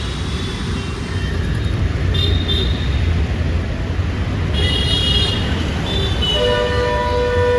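Road traffic noise: a steady low rumble of engines with vehicle horns honking over it, brief high-pitched toots about two and five seconds in, and a longer, lower horn from about six seconds in.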